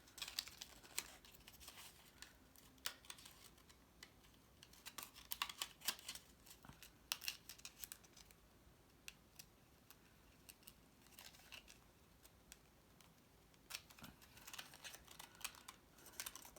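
Faint, scattered rustles and light taps of cardstock pieces being handled and slid into place.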